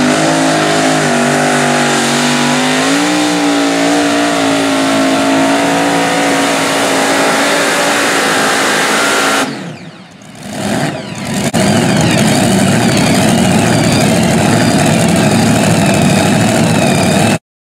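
Super modified pulling tractor's supercharged engines running hard through a pull: a loud, steady drone that climbs a little in pitch at first, then holds. About nine and a half seconds in the sound drops away sharply, then comes back about two seconds later as a loud, rougher rumble that cuts off abruptly near the end.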